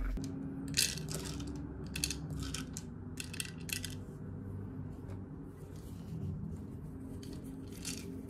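Thin plastic water bottle crinkling and clicking as it is handled and a rubber treat-dispenser cap is worked onto it: short clusters of crackles in the first four seconds and once more near the end.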